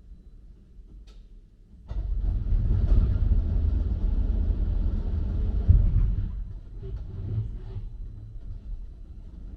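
Automated mechanical car-park machinery starting up about two seconds in and rumbling loudly as it carries a car on its pallet into the storage bay, then winding down and fading over the last few seconds.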